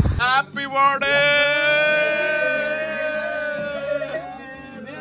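A man's solo singing voice: a short rising phrase, then one long held note that fades near the end.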